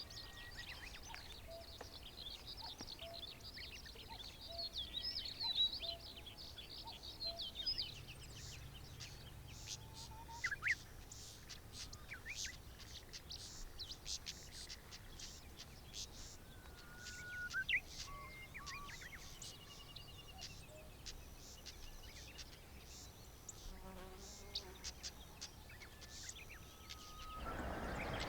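Wild songbirds chirping and singing, several at once. A dense, rapid run of high chirps fills the first few seconds, then scattered calls and short notes follow. A louder, even rushing noise comes up near the end.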